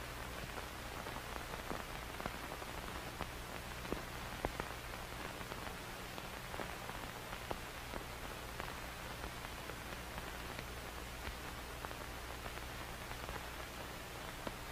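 Surface noise of an old film print's soundtrack running on blank leader: a steady hiss and low hum with scattered irregular clicks and pops from dust and scratches on the film.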